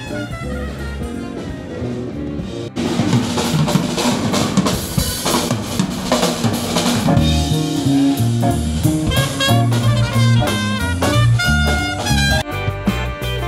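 Music for about two and a half seconds, then an abrupt cut to a live band playing louder: drum kit, electric guitar, trumpet and saxophone, with the drums to the fore.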